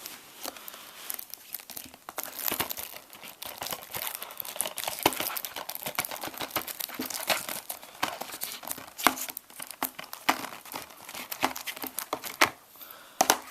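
Plastic shrink-wrap being crinkled and torn off a Blu-ray case, an irregular stream of crackles and sharp clicks as it is handled.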